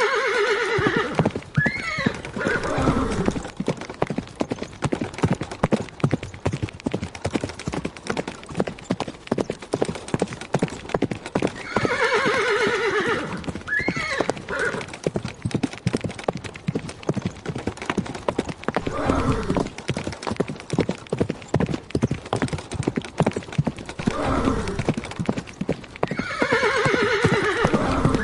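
Horse hooves galloping in a rapid, continuous clip-clop, with a horse whinnying three times: near the start, about twelve seconds in, and near the end.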